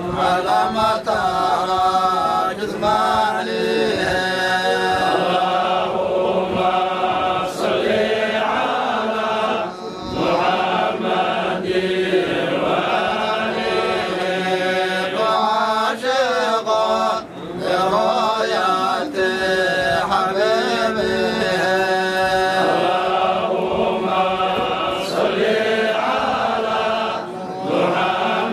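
A group of men chanting a Somali devotional salli (praise on the Prophet) together, several voices in unison with short breaks between phrases.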